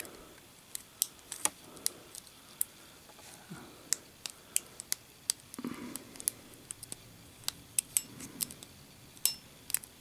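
Lock pick clicking and scraping against the pin tumblers inside a brass padlock's keyway, with a tension tool held in the plug: irregular light metallic clicks, about two a second.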